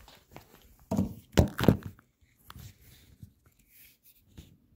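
Handling noise of a cardboard box being set on a desk chair: a few thuds and rustles between about one and two seconds in, then faint shuffling.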